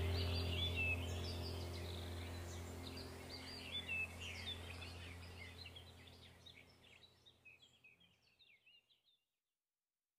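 Many small birds chirping and twittering over a low steady hum, the whole sound fading out gradually to silence over about eight seconds.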